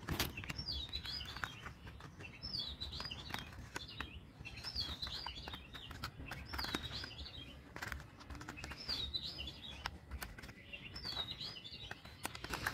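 A songbird repeating the same short chirping phrase about once a second, over light clicks and rattles of plastic toy bus parts being snapped together by hand.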